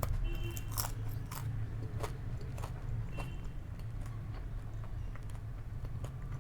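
Close-miked mouth sounds of chewing food, with sharp crunchy clicks about every half second that grow fainter after about three seconds. A steady low hum lies underneath.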